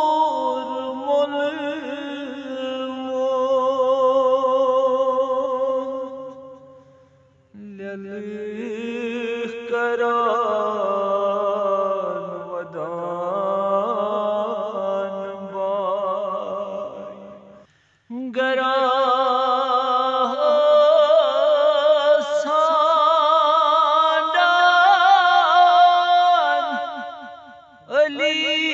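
A man chanting a noha, a Shia lament, in long held notes with a wavering vibrato. He sings three drawn-out phrases, with short breaths about seven and eighteen seconds in.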